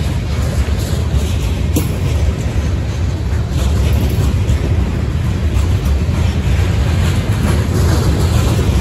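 Freight train tank cars rolling past at close range: a steady low rumble of steel wheels on the rails, with scattered clicks from the wheels passing over the track.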